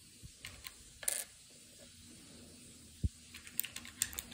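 Small wooden stamp-game tiles clicking as they are picked out of the wooden box and set down on a wooden table: scattered light clicks and taps, one louder tap about three seconds in, and a quick run of clicks near the end.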